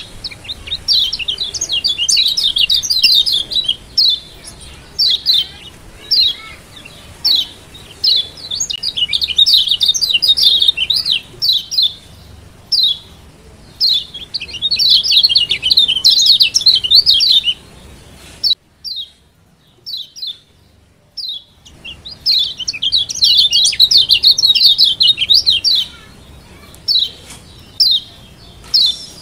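Kecial kuning (Lombok yellow white-eye) giving short, sharp high "ciak" calls one after another, broken by several runs of rapid chattering a few seconds long. There is a gap of about three seconds with almost nothing in it, a little past the middle.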